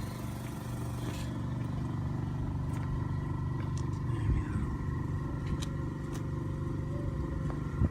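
Steady low hum of a running vehicle engine, with a few faint clicks.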